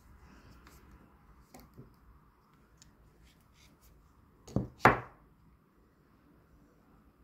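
Faint clicks and handling rustle, then two sharp knocks in quick succession a little before the five-second mark as a steel digital caliper is set against the edge of the planed wood slab to measure its thickness.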